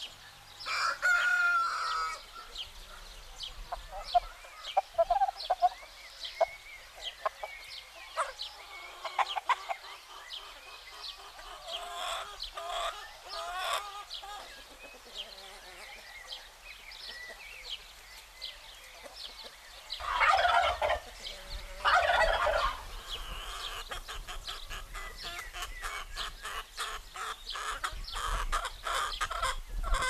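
A flock of chickens clucking with scattered short calls. A rooster crows twice in a row about two-thirds of the way through, and there is another loud call about a second in. Near the end comes a fast run of short repeated pulses.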